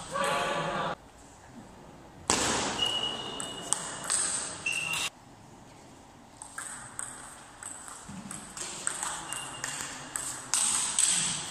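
Table tennis ball being struck back and forth in a rally, sharp clicks of ball on bats and table in quick succession. A loud rush of noise lasts about three seconds in the first half and cuts off abruptly.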